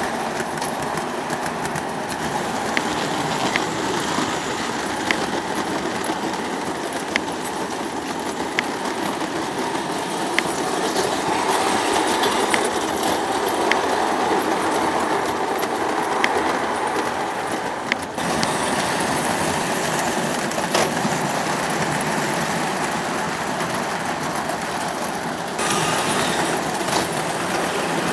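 O gauge model trains running on the layout track: a steady rumble of wheels on rail with a sharp click every second or so. The sound shifts abruptly twice, about two-thirds of the way in and again near the end.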